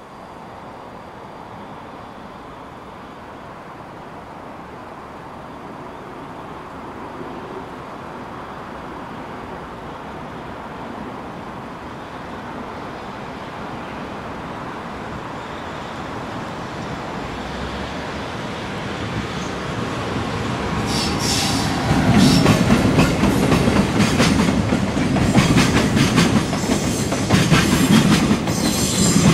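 JR Freight EF210 electric locomotive hauling a container freight train, approaching with a steadily growing rumble. From about two-thirds of the way in it passes close, and the container wagons' wheels clatter over the rail joints in a fast, steady rhythm of clicks.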